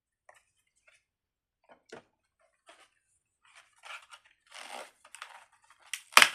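Handling of a plastic fidget toy and its packaging: scattered faint clicks, then crinkling and rustling that grows louder, with a few sharp clicks near the end.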